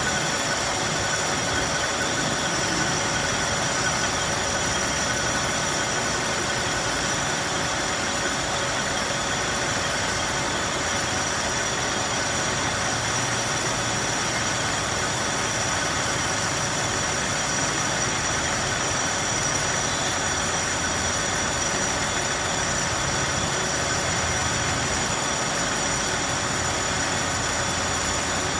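Engine lathe running steadily while turning a metal part, a continuous mechanical whir with several steady high-pitched whines from the headstock gearing.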